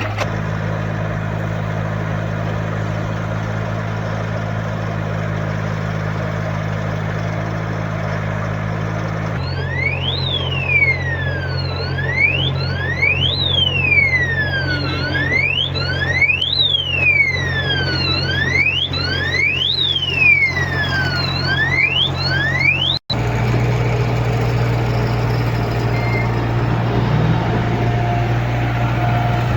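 Heavy vehicle engine running steadily, joined after about nine seconds by an electronic siren-like alarm. The alarm sweeps up and down over and over, about once every second and a half, for roughly thirteen seconds, then stops.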